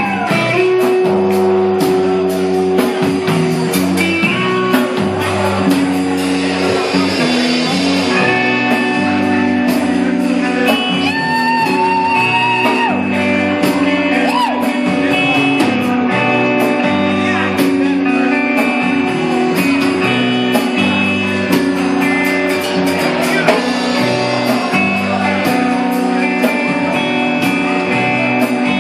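Live rock band playing loud and steady: guitar over a drum kit with regular drum hits.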